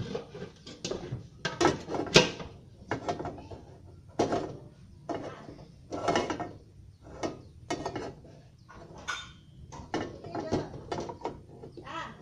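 Irregular knocking and clattering, a dozen or so sharp knocks spread unevenly, some with a brief ringing edge.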